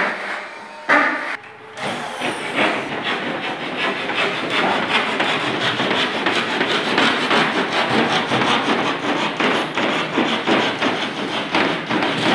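Two sharp knocks, then a long run of rapid, rough scraping strokes from a hand tool worked on gypsum plasterboard.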